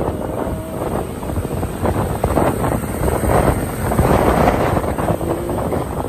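Wind buffeting the microphone of a camera on a moving motorcycle, a choppy rushing noise over the low drone of the motorcycle and road.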